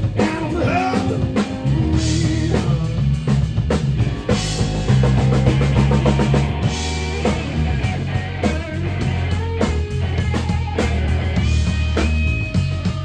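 A live rock band playing: electric guitar, electric bass and a PDP drum kit together, with a steady beat and sustained bass notes.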